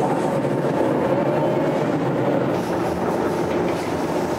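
Workshop machinery in a spray-painting shop running with a steady, even noise.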